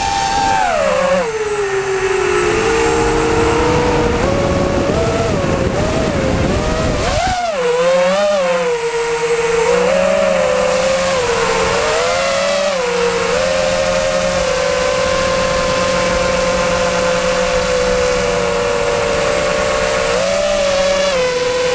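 FPV quadcopter's electric motors and propellers whining, the pitch rising and falling with each throttle change, then holding a steady hum through the second half. A low rumbling noise runs under it for the first seven seconds or so and cuts off suddenly.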